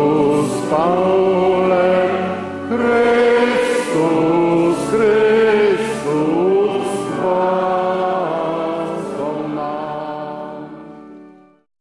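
A group of voices singing a hymn together, fading out over the last few seconds.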